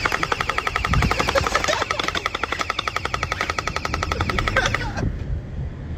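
Electric gel-ball splat gun firing a rapid full-auto burst, its motor whining under a fast train of pops; the burst stops about five seconds in.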